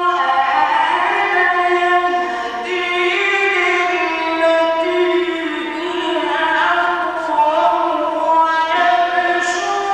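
Male Quran reciter chanting in the melodic mujawwad style: long held notes on one pitch that break into ornamented, wavering runs.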